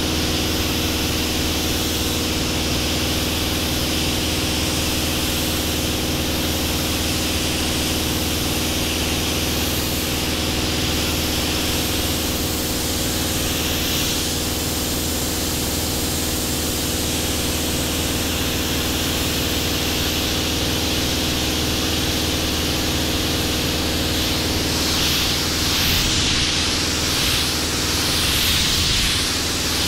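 Compressed-air paint spray gun hissing as it sprays paint, over a steady machine hum with several fixed low tones. Near the end the hiss comes in short repeated bursts.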